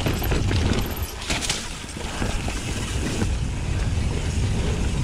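Mountain bike riding fast down a dirt singletrack: tyres rolling over loam, wind buffeting the helmet or chest camera's microphone with a low rumble, and the bike rattling over bumps, with a few sharper knocks about a second and a half in.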